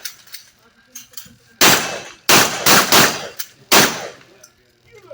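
Shotgun shots fired in quick succession, about five loud reports within some two seconds, each trailing off with a ringing echo.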